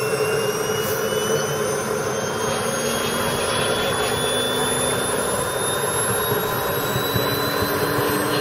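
A small ATJ gas turbine powering an RC model jet, running with a loud steady rush and a high whine that climbs slowly in pitch as the turbine speeds up.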